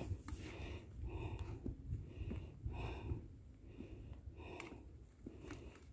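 A hiker panting hard from the exertion of a steep uphill climb, heavy breaths coming about once a second. A low rumble runs underneath.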